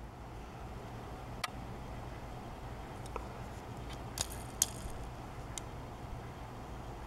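About five short, sharp plastic clicks and taps as fingers handle and turn a Matchbox diecast toy truck with a plastic glass-pane rack, over a low steady hum.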